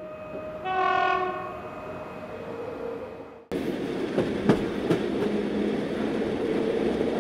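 A train horn sounds once for about a second and fades away. About three and a half seconds in, the rumble of a subway train running into the station cuts in abruptly, with clicks of wheels over rail joints.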